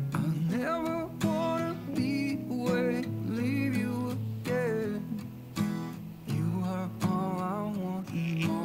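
Background music: a song with strummed acoustic guitar and a sung melody.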